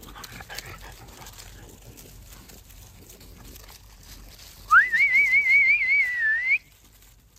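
A person whistling to call a dog back: one note sweeps up, then warbles quickly up and down for about two seconds before cutting off suddenly.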